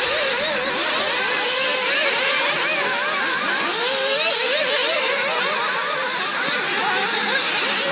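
Several nitro-engined radio-controlled cars racing together, their small glow engines revving up and down as they go round the track, the pitches rising and falling over one another.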